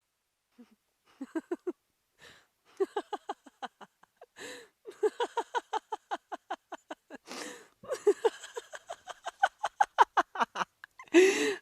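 A woman laughing in several long bouts of quick "ha-ha" pulses, about six a second, with gasping in-breaths between the bouts and a loud in-breath near the end.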